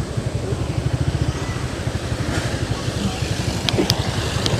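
Small motorbike engine running at a steady speed while riding, with a rapid, even low pulsing. A few short, sharp clicks come near the end.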